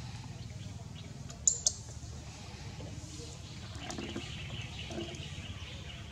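A plastic water bottle handled by a macaque: two sharp crackles about a second and a half in, then softer crinkling and knocking about four to five seconds in as the bottle is pulled onto its lap. A steady low hum runs underneath.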